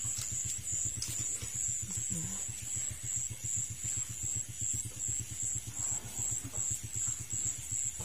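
A constant high-pitched drone of night insects over a steady low throbbing that pulses about six times a second.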